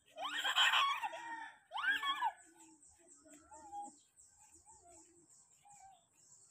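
A young child's high-pitched squeals, two loud ones in the first two seconds, followed by fainter short calls.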